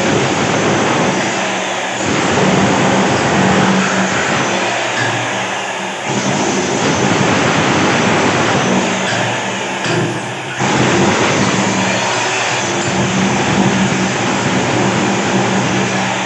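Electric demolition hammer chipping away old bathroom tiles and their backing, running in long bursts with short breaks about 2, 6 and 10 seconds in.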